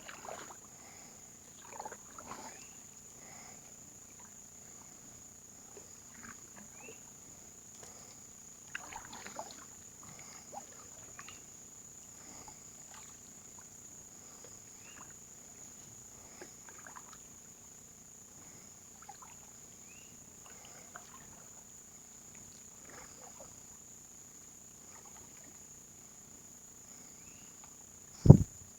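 Canoe being paddled, with scattered faint paddle splashes and drips, over a steady high-pitched insect drone. One loud knock near the end.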